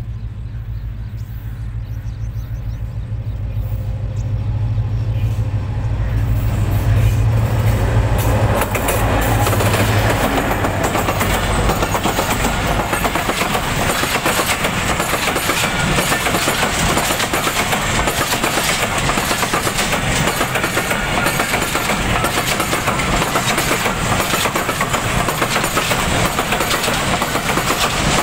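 Freight train's diesel locomotive approaching and running past, its engine hum growing louder over the first several seconds. Then the steady noise of a long rake of covered box wagons rolling by on the rails.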